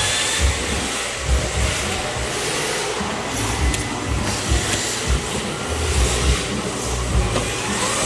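Electric RC drift cars sliding around a smooth track on hard plastic drift tyres, giving a steady hiss of tyres and small motors with a faint high whine. Irregular low thumps come and go throughout.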